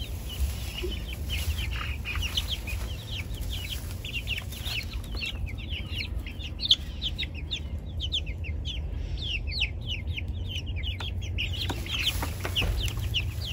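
A flock of young American Bresse chicks peeping continuously, many short falling chirps overlapping one another, with a steady low rumble underneath.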